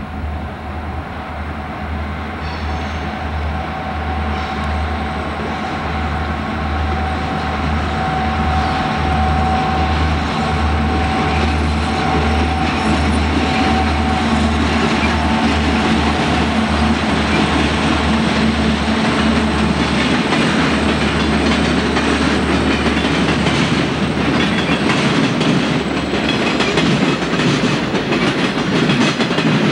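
Soo Line EMD SD60 diesel locomotives passing close, engines running with a pulsing low rumble and a steady whine, growing louder as they approach. Near the end the following freight cars roll by with wheels clicking over the rail joints.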